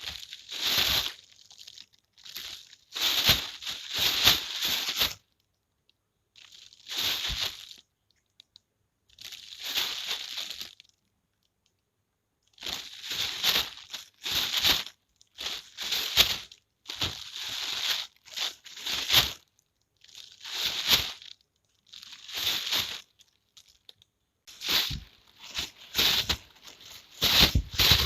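Plastic bag being shaken in repeated bursts, each a loud crinkling rustle lasting about a second, with short silent pauses between.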